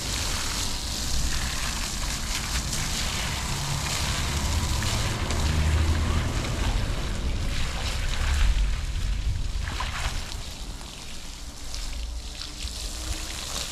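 Steady rushing water noise, with wind buffeting the microphone in uneven low gusts that swell twice in the middle.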